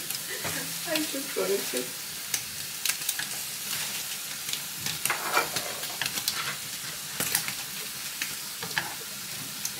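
Food sizzling as it fries, a steady hiss dotted with small crackles and clicks.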